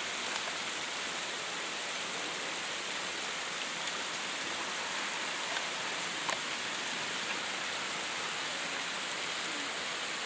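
Steady hiss of ice pellets falling heavily, like heavy rain, with a few sharp ticks scattered through, the clearest about six seconds in.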